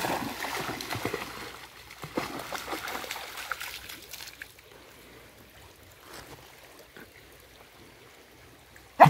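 A dog splashing as it runs through a shallow stream; the splashing fades after about four seconds, leaving the faint trickle of the flowing water.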